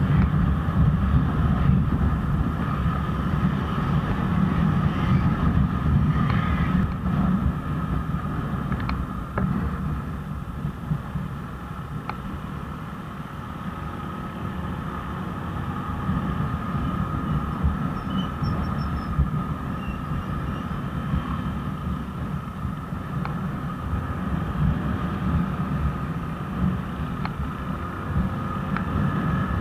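Onboard sound of a motorcycle riding at road speed, its engine rumbling under wind on the microphone, with a steady high whine over it. It eases off and goes quieter for a few seconds about ten seconds in, then picks up again.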